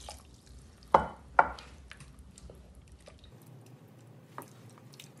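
Two sharp knocks about a second in, then faint scraping and small ticks of a wooden spoon stirring a thick sauce in a stainless steel saucepan.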